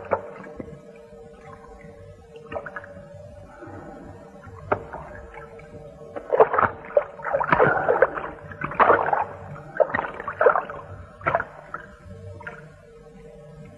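River water splashing and sloshing in irregular bursts, busiest in the middle, over a steady faint tone.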